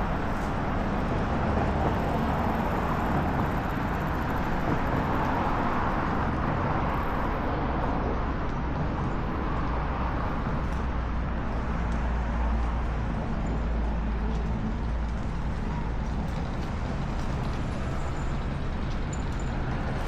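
Steady outdoor traffic noise of road vehicles passing, with a low rumble that swells through the middle of the stretch and eases off near the end.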